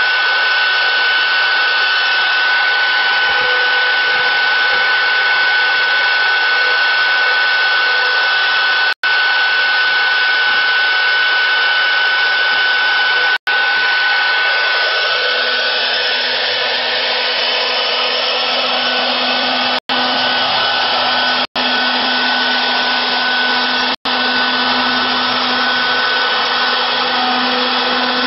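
CNC router spindle running at speed, milling wood, with a steady high whine over a whirring noise. A lower steady hum joins about halfway through, and the sound drops out for an instant several times.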